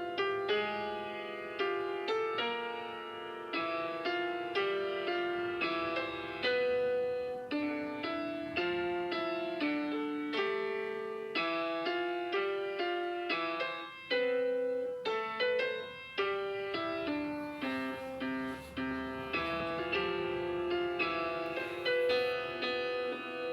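Solo piano playing a song's accompaniment with no voice: a steady run of chords and melody notes, each struck and fading.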